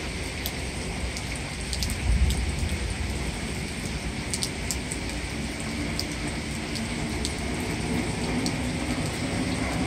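Heavy rain falling steadily on a street and lawns, a constant hiss with scattered sharp drip and splash ticks. A brief low rumble swells about two seconds in.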